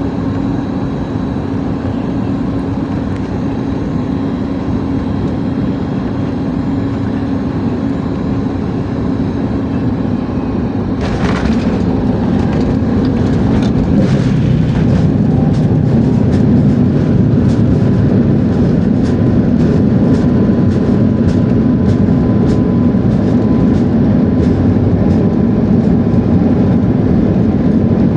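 Cabin noise inside a Boeing 737 MAX on landing: a steady hum of engines and airflow, then about eleven seconds in a sudden jolt as the wheels touch the runway. After that a louder rumble with many short rattling knocks as the airliner rolls out.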